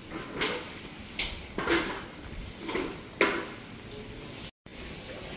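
Footsteps on a hard polished stone floor, about five distinct steps over the first three and a half seconds. The sound drops out for an instant about four and a half seconds in.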